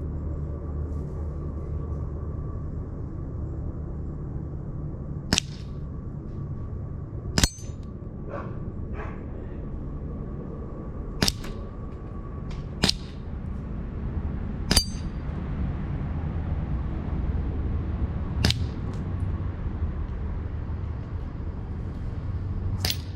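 Sig Sauer P365 BB pistol firing about seven single shots a few seconds apart. Several shots are followed by a short metallic ping or clang as BBs strike the steel spinning targets.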